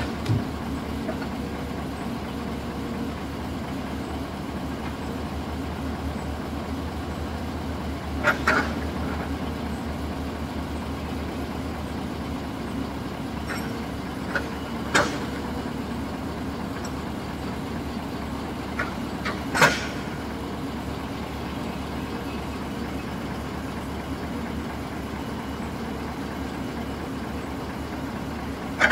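Heavy diesel engine of a log-loading excavator running steadily. Three short sharp noises rise above it during the loading.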